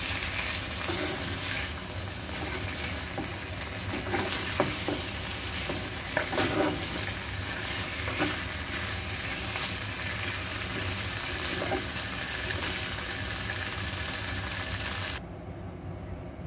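Pork ribs in masala paste sizzling in a frying pan while a spatula stirs and turns them, with a few short scrapes and knocks of the spatula against the pan. The sizzle cuts off suddenly about a second before the end.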